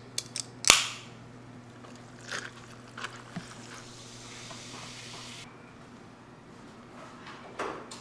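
A few sharp clicks or knocks, the loudest just under a second in, then a few weaker ones, over a faint steady hum that stops about five and a half seconds in.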